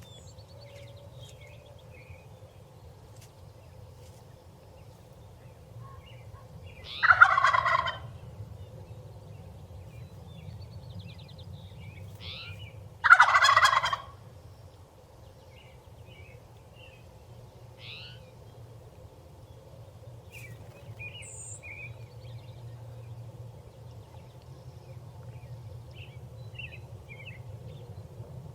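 Wild turkey tom gobbling twice, each gobble a rattling call about a second long, some six seconds apart. Small birds chirp faintly in between.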